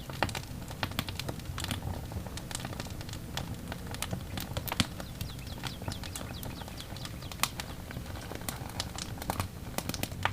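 Irregular sharp clicks and crackling over a low steady hum.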